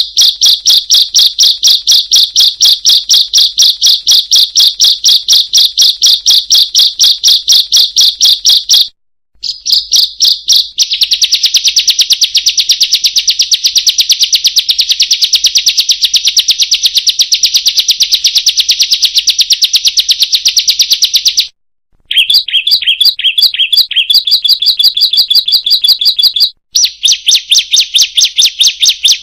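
Ciblek (bar-winged prinia) song: long runs of rapid, evenly repeated high chirps, about five a second, broken by a few brief pauses. In the middle the notes run together into a faster, denser trill.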